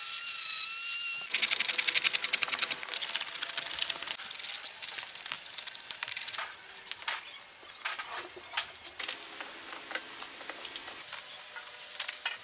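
A small high-speed power tool whining steadily, then working against a part with dense rapid scraping and clicking that thins out toward the end.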